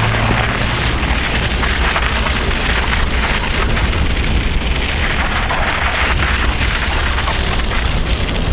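Steady rushing noise of a gravel bike riding over packed snow: tyres rolling on snow and wind on the chest-mounted microphone.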